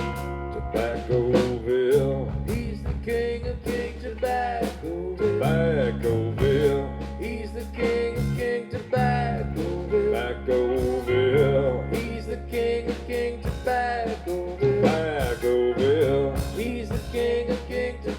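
Live country band playing an instrumental break: a guitar carries the melody with bending notes over bass and a steady drum beat.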